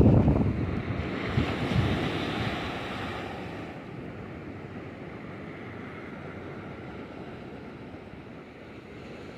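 Waves breaking and washing up on a sandy beach. Gusts of wind buffet the microphone during the first few seconds, then fade, leaving a steady wash of surf.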